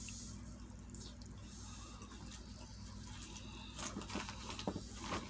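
Close-up mouth sounds of a person chewing a Subway sandwich: soft wet smacks and clicks, growing busier in the last second and a half, over a low steady hum.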